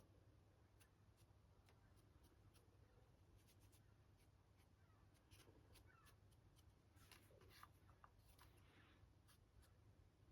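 Faint, irregular scratchy strokes of a dry paintbrush's bristles flicking over the raised details of a 3D-printed figure, over a low steady hum.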